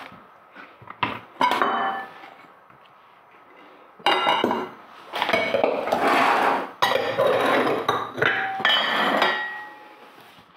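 A spatula scrapes briefly through a dry, crumbly mixture in a nonstick pan. From about four seconds in come several seconds of louder kitchen clatter, pots, dishes and utensils knocking and clinking.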